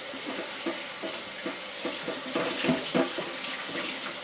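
Kitchen tap running into a sink as something is rinsed under it, with a few knocks, the loudest a little under three seconds in.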